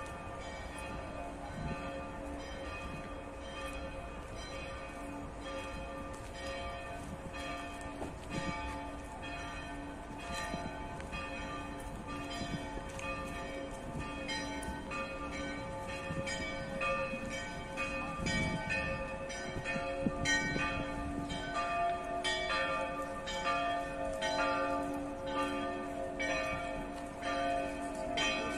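Church bells pealing, struck again and again about twice a second with the tones ringing on between strokes, growing a little louder in the second half.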